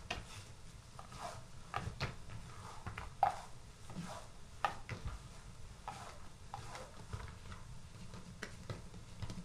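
Hands kneading and punching down soft risen yeast dough on an oiled table: irregular faint pressing and slapping sounds of dough against the surface, with a sharper tap a little over three seconds in.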